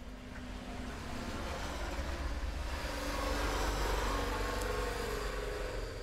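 A road vehicle passing by, its engine and road noise swelling to a peak about three to four seconds in and then fading.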